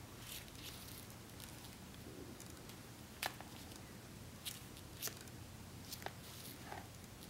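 Faint handling sounds of bead stitching: a few small sharp clicks as the needle picks seed beads off a paper plate, the loudest just after three seconds, with soft scratchy rustles of thread being drawn through, over a low steady hum.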